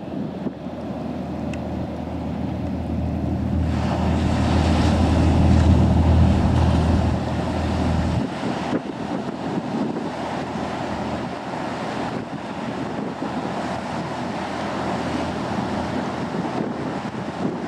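High-speed catamaran ferry running past at speed: a low engine drone that swells and then drops away abruptly about eight seconds in, with wind buffeting the microphone and the rush of its wake.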